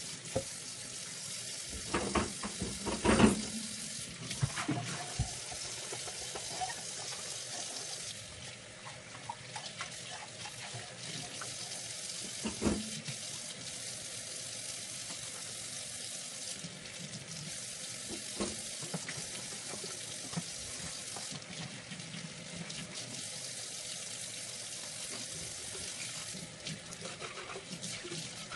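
Kitchen tap running into a sink while dishes and food containers are washed, with a few sharp clatters of the dishes, the loudest about three seconds in and another near the middle.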